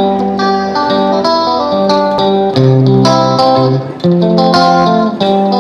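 Background music led by plucked guitar notes, with a steady bass line.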